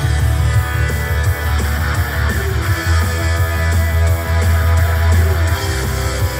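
Rock music with electric guitar and strong bass, played back through JBL L52 Classic bookshelf speakers and picked up in the room.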